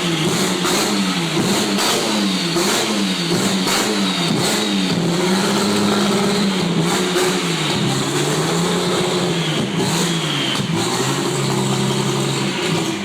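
Chevrolet Opala straight-six engine revved over and over, its pitch rising and falling every second or two, with short sharp crackles from the exhaust now and then.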